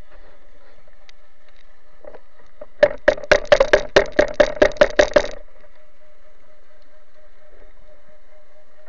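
A quick, even run of about a dozen sharp clicks, roughly five a second, starting a few seconds in and lasting about two and a half seconds, heard underwater over a steady faint hum.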